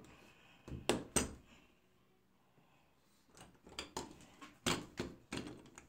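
Clicks and knocks of a brass doorknob being worked with a small tool pushed into its lock, as a locked bathroom door is picked open. Two sharp clicks about a second in, then a run of clicks and knocks near the end.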